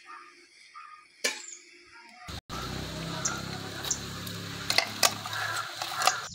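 Scattered sharp clinks of kitchen utensils. About two and a half seconds in the sound cuts abruptly to a louder background of steady low hum and hiss, with several more clinks.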